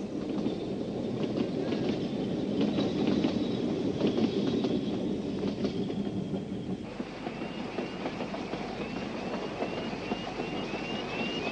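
Ffestiniog Railway narrow-gauge steam train running, with the clatter of carriages over the rail joints. About seven seconds in, the sound changes to the locomotive heard from the footplate, with a short rising squeak that repeats about twice a second and slowly quickens.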